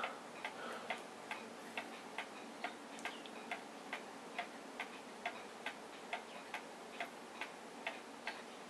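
Faint clicks from a Scosche gamma radiation detector, about two to three a second and not quite evenly spaced, as it counts radiation given off by a person's body after a dose of radioactive iodine-131.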